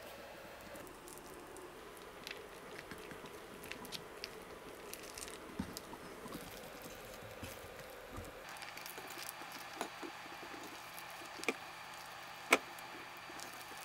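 Faint, soft handling sounds of wet rice paper being folded and rolled around meat filling on a wooden cutting board, with scattered small clicks and taps; the sharpest tap comes near the end.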